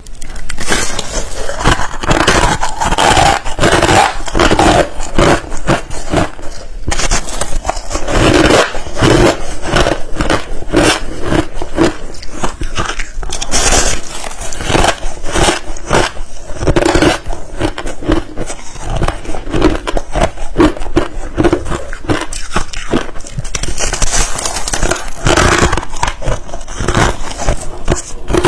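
Ice being bitten and chewed close to a microphone: a continuous, loud run of sharp crunches and crackles.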